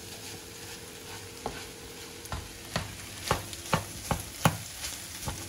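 Slotted spatula stirring fried rice in a nonstick frying pan over a steady sizzle of frying, knocking against the pan in sharp taps about twice a second from a second and a half in.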